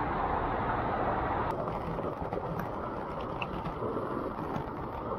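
Steady rushing of water at a waterfall, a constant noise without pitch that turns duller about one and a half seconds in.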